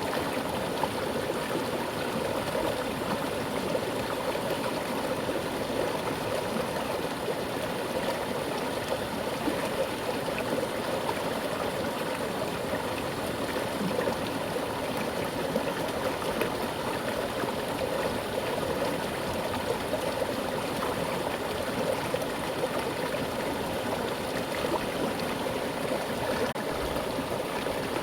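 Mountain river running steadily over rocks with a strong current: a continuous rushing, gurgling flow of water.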